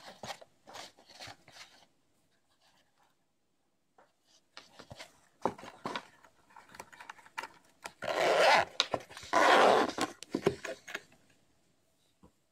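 Zipper of a fabric-covered hard clamshell glasses case being worked by hand: a few short scratchy tugs at the start, scattered handling clicks, then two long zipper runs of about a second each a little past the middle, the loudest sounds.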